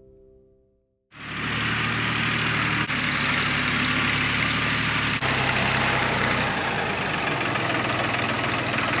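Engine of a compact loader tractor running steadily as it drives, coming in about a second in after a brief lull.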